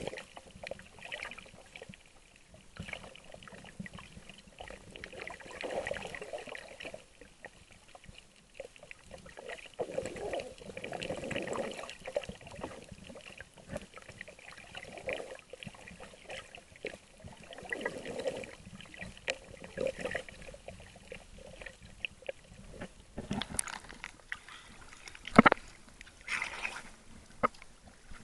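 Water sloshing and trickling in shifting, uneven surges around a camera held in the water, with a few sharp knocks near the end.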